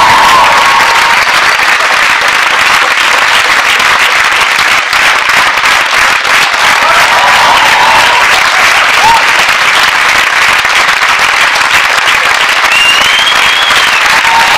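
Audience applauding steadily, with a few voices whooping over the clapping.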